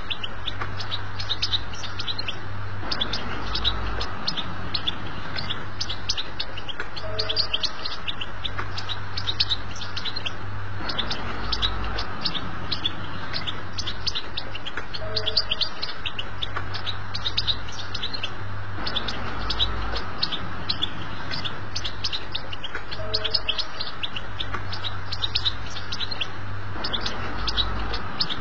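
European goldfinch singing a continuous, rapid twittering 'betbta' song of high chirps and trills, the chattering song played as a tutor recording to teach young goldfinches. The song repeats in a loop about every eight seconds over a low hum.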